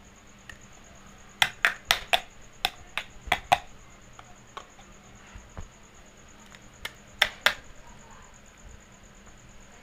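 Hard plastic toy pots and a toy stove clacking against each other as they are picked up and set down. A quick run of about eight sharp clicks comes a second and a half in, and two more come near the end.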